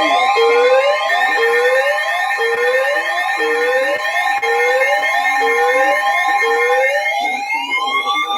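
Emergency alert tones from a weather radio broadcast: steady alarm tones hold throughout, and one of them drops out about two-thirds of the way in. A siren sounds over them, whooping upward about once a second, then changing to a slow rising and falling wail near the end.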